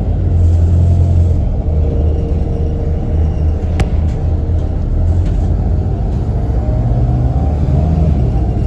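City bus running along a street, heard from inside the passenger cabin: a steady low rumble of engine and road noise, with a single sharp click a little under four seconds in.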